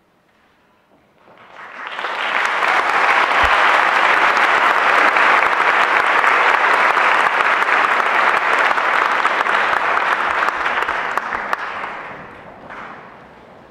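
Audience applauding in a hall: the clapping starts about a second in, swells quickly to a steady ovation, and dies away near the end.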